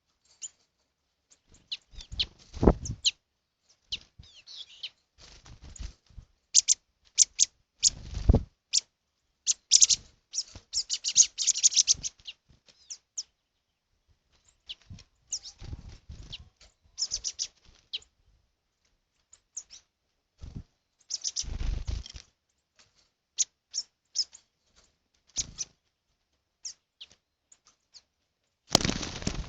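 Wild birds chirping in short, scattered calls with silent gaps between them, broken a few times by brief low bumps of noise.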